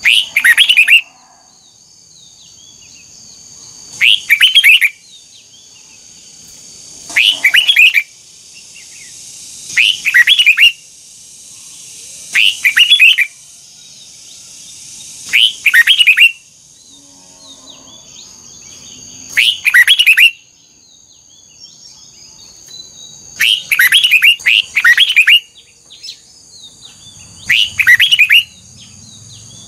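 Red-whiskered bulbul singing short, loud, rapid song phrases, repeated about every three seconds, with a cluster of phrases in quick succession near the end. A steady high-pitched tone, like insects, runs underneath.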